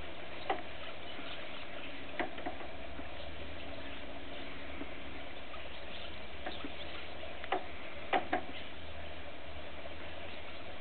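Steady low hiss and hum with a few scattered sharp clicks and taps, three of them close together about eight seconds in.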